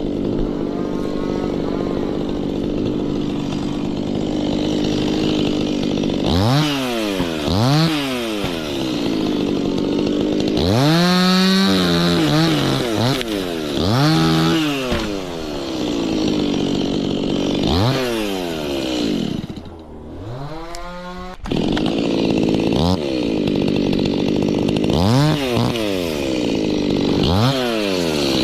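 Two-stroke chainsaw running, at first at a steady speed, then revved up and down over and over, its pitch rising and falling with each squeeze of the throttle as it cuts.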